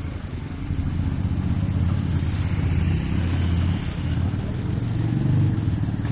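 A motor vehicle engine running, a low rumble that grows louder about a second in and stays strong.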